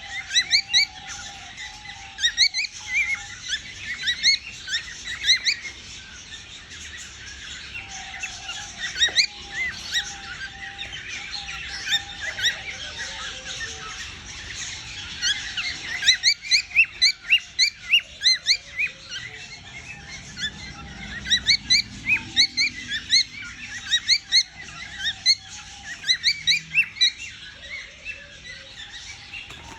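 Cockatiel humming: a low steady note that comes in stretches of a second or two. Behind it runs dense, rapid high chirping in bursts, heaviest about halfway through and again later on.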